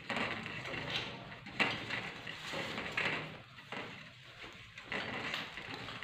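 Rustling and scraping of a cloth curtain as baby monkeys climb and tug on it, in short bursts about every second or so.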